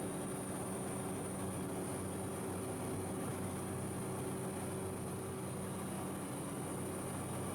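Engines of a sightseeing cruise boat running steadily, a low, even hum with a thin high whine above it.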